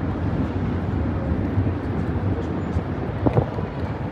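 Steady low rumble of outdoor city street ambience, with two short knocks a little past three seconds in.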